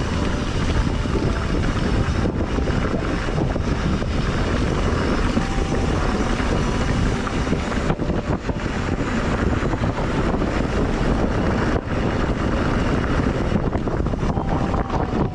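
Steady, loud wind rush buffeting the camera microphone while riding a mountain bike down a trail.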